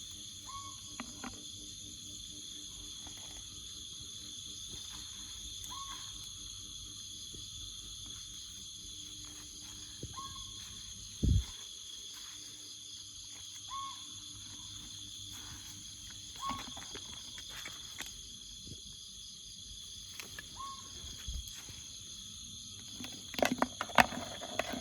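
Jungle insect chorus: a steady chirring in several high tones throughout, with a short animal call repeated every few seconds. A single low thump comes about eleven seconds in, and there are clicks and rustling near the end.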